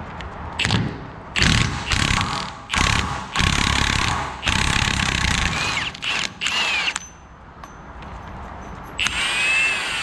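Cordless impact wrench hammering in a series of short bursts, breaking loose mounting bolts. A last burst near the end carries a whine that rises and falls.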